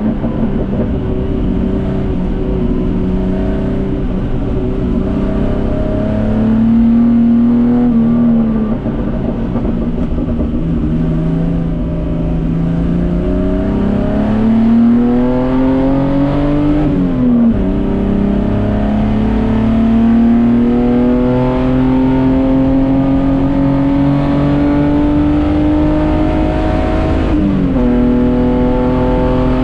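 Datsun 240K race car's straight-six engine under load, climbing steadily in revs and dropping sharply at gear changes about 17 and 27 seconds in, with a falling-off near the start and again around 8 seconds.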